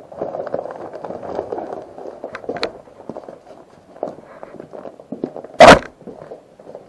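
Rustling and clattering with scattered sharp clicks, then one loud, short thump about five and a half seconds in.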